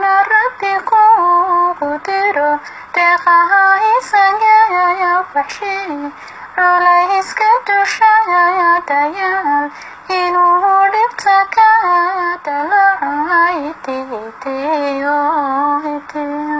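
A woman singing a Somali song (hees) in a high voice, with sliding, ornamented melody lines sung in phrases that break off every few seconds.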